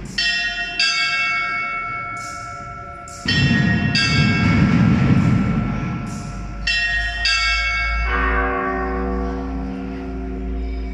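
Bells struck about six times, each note ringing on and overlapping the next; the last strike, about eight seconds in, is lower in pitch. A low rumble swells underneath from about three seconds in for a few seconds.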